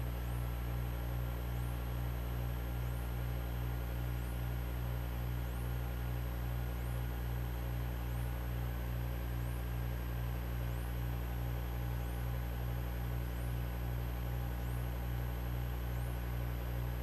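Steady low drone of a Stinson 108-3's six-cylinder Franklin 165 engine at approach power, heard through the cockpit audio feed together with electrical hum and a faint hiss, with a slow, even throb.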